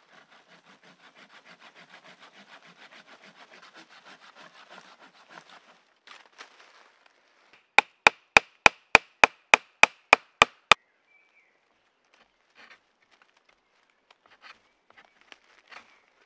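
Folding hand saw cutting through a green branch in quick, even strokes for about five seconds. Then eleven sharp, ringing knocks in a row, about three a second and much louder than the sawing, followed by faint scattered snaps and rustles.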